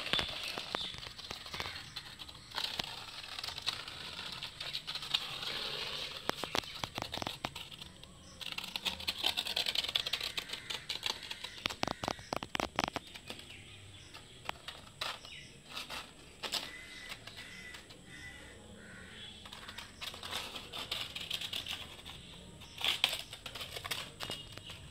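Many small birds chirping in a dense chorus, with runs of sharp clicks now and then.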